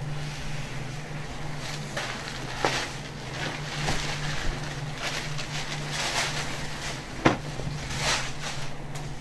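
Saree fabric being flung open and spread out, swishing and rustling in several quick sweeps, with a sharp knock about seven seconds in. A steady low hum runs underneath.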